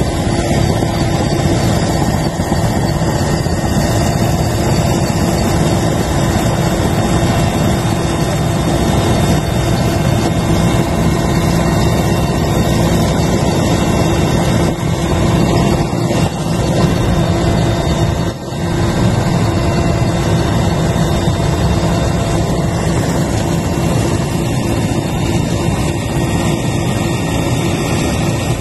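Helicopter engines and main rotor running steadily, heard from inside the cabin: a loud, continuous drone with a steady hum.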